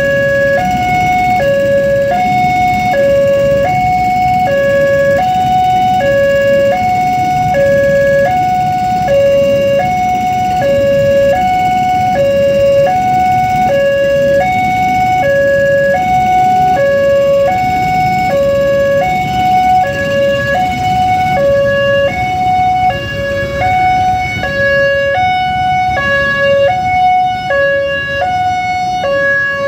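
Electronic warning alarm of an Indonesian railway level crossing sounding from its loudspeaker: a two-tone hoot alternating evenly between a lower and a higher note about once a second. Under it runs the low rumble of a passenger train's carriages passing over the crossing.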